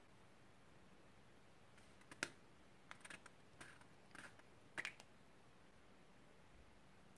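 A handful of light, sharp plastic clicks and taps as a hard plastic apple-shaped lip balm container is handled and its lid taken off, the loudest click about two seconds in, with near silence around them.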